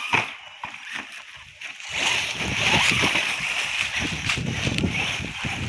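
ZD Racing ZMT10 RC monster truck driving through dry fallen leaves: a sharp knock at the start, then from about two seconds in a steady crunching rustle as its tyres churn up the leaves.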